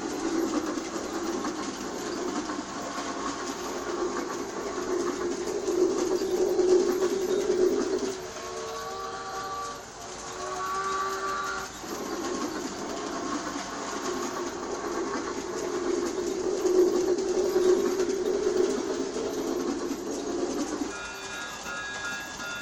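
G scale toy steam train running around its track, its motor and wheels making a steady rolling hum, interrupted about eight to twelve seconds in by two pitched whistle sounds, with another pitched sound starting near the end.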